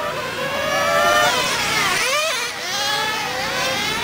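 Several 1/10 scale nitro RC cars' small two-stroke glow engines screaming around the track, their pitches rising and falling and crossing one another as the cars accelerate and brake through the turns.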